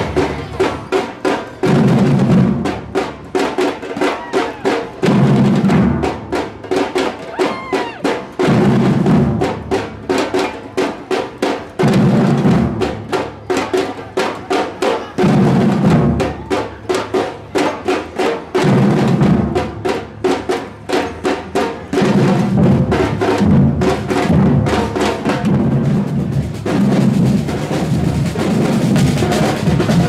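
Street drum band playing together: rapid snare drum strokes over deep bass drums, with a heavy bass-drum figure recurring about every three and a half seconds and the playing growing denser in the last several seconds.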